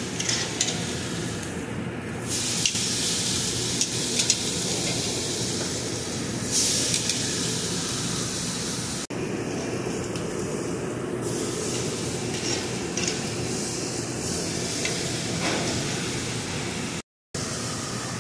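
Flank steaks sizzling on a gas charbroiler grill, a steady hiss that swells louder several times as the meat is moved and turned with tongs. The sound drops out briefly near the end.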